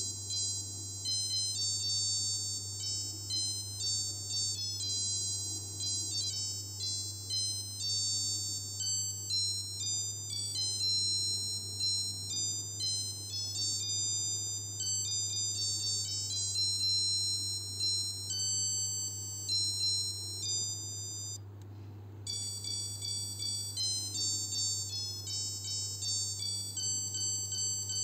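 Casio H-104 melody alarm watch (module 82) playing its electronic melody through its piezo buzzer, a quick run of high beeping notes. The tune breaks off for under a second about three quarters of the way through, then starts again. A faint steady low hum runs underneath.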